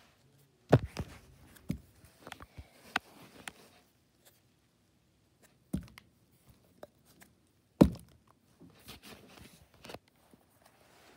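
A small plastic slime tub being flipped and landing on carpet with dull thumps. The three loudest come about a second in, near six seconds and near eight seconds, with smaller knocks and rustles of handling in between.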